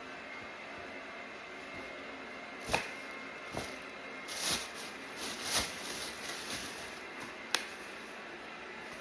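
Fabric being handled and folded: a run of soft swishing rustles, with two sharp clicks, one before the rustling and one after it, over a steady hiss.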